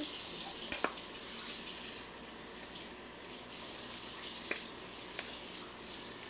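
Vegetable broth simmering steadily in an enameled cast-iron Dutch oven. A few light clicks, about a second in and again near the end, come from a wooden spoon scraping canned crab meat out of the tin.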